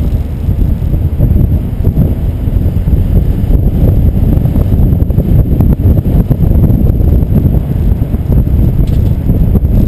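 Wind buffeting the microphone of a camera riding on a moving vehicle's bike rack: a loud, steady low rumble with road noise from the vehicle underneath.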